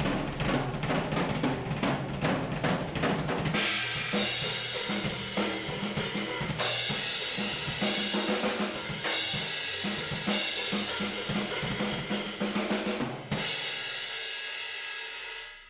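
Drum kit playing a fast, busy pattern. About four seconds in, other instruments join with held chords over the beat. Near the end the music stops on a final hit that rings out for about two seconds.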